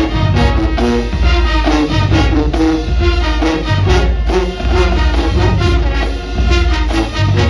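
Marching band playing a brass arrangement: sousaphones, trumpets and other brass over a drumline with bass drums keeping a steady beat.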